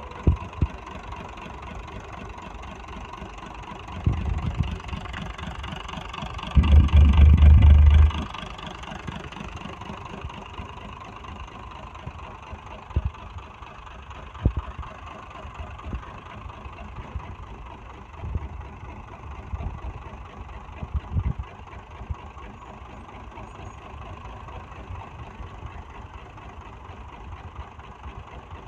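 Used truck diesel engine with a mechanical injection pump, running out of the vehicle on a test run and idling steadily. About seven seconds in there is a loud low rumble lasting over a second, with a few smaller low surges later.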